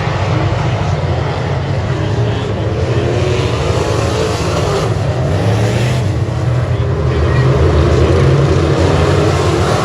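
Dirt-track race car engine running hard at racing speed, the note swelling slightly and growing louder about seven and a half seconds in.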